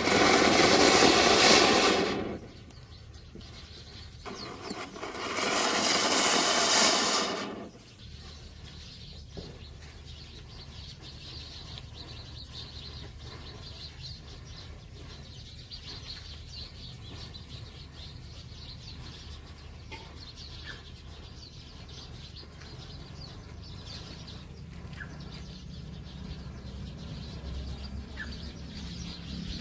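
Firecracker hissing as it sprays sparks, in two loud spurts over the first eight seconds. Then a long, quieter fizz and crackle as a line of matchsticks catches fire one after another.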